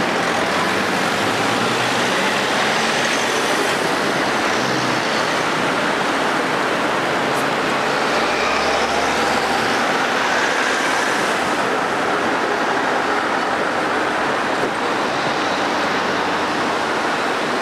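Steady road traffic: cars and vans driving past close by, a continuous wash of engine and tyre noise.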